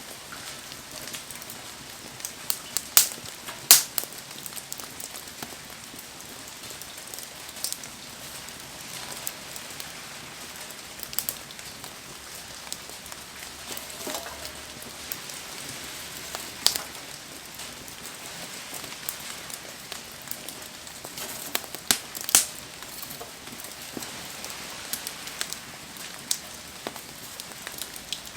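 Wood campfire burning in the rain: a steady hiss of rainfall with the fire crackling, and a few sharp pops scattered through, the loudest about 3 to 4 seconds in and about 22 seconds in.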